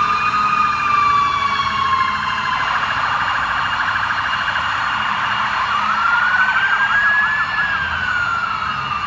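Several emergency-vehicle sirens sounding together as fire apparatus drive off with lights and sirens. A slow wail falls over the first couple of seconds, a fast yelp runs from about three to six seconds in, and a second wail rises, then falls toward the end.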